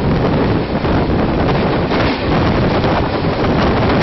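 Steady loud rumble and clatter of train wheels on rails as passenger coaches run close alongside on the adjacent track, heard from a moving train with wind buffeting the phone microphone.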